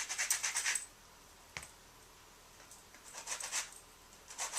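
Lemon peel being zested: quick rasping strokes of the rind against the zester's fine teeth, in two short runs with a pause and a single click between.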